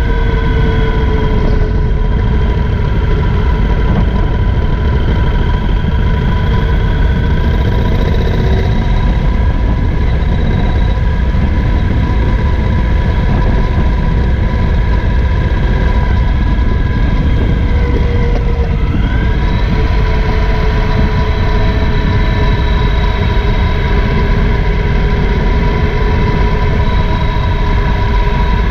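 Triumph Thunderbird LT's parallel-twin engine running under way, mixed with wind and road rush on a low-mounted camera as the motorcycle rides down a winding road. The engine note dips and then climbs again about two-thirds of the way through.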